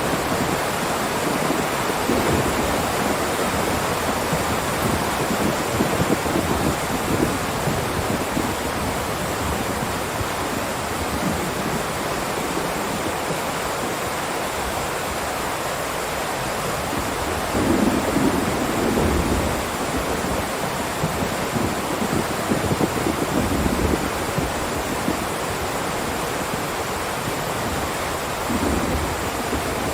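Heavy rain pouring down in a steady hiss, with a few low rumbles swelling up, the strongest about two-thirds of the way through.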